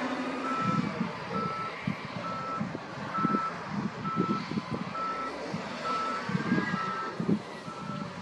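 A wheel loader's reversing alarm beeps a single steady tone about every three-quarters of a second as the loader backs up, over heavy diesel engines running.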